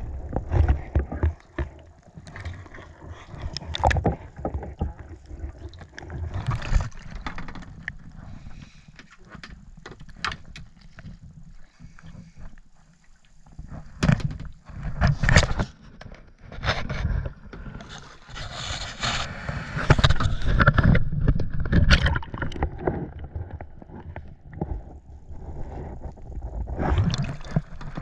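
A kayak on the water: uneven splashing and gurgling of water, with sharp knocks and scrapes from the paddle and kayak close to the camera.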